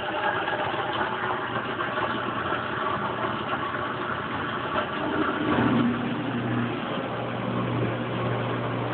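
Kenmore Oasis top-load washer's drain pump running steadily, pumping the water out during the self-test's drain step. About five and a half seconds in, the sound changes and a steady low hum comes in as the tub runs empty.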